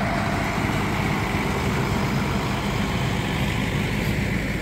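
Fendt 716 Vario tractor's diesel engine running steadily as it tows a long tree trunk along the road.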